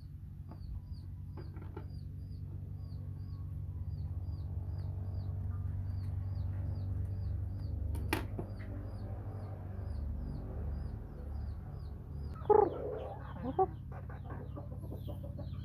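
Chickens: a steady run of short, high peeps, about three a second, over a low steady hum. There is one sharp click about eight seconds in, and two loud squawks near the end.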